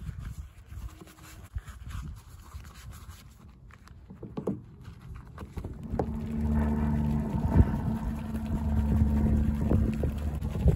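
Wind rumbling on the microphone and the soft scrub of a soapy detailing brush on car paint and trim. About six seconds in, a steady mechanical motor hum starts and continues, louder than the wind.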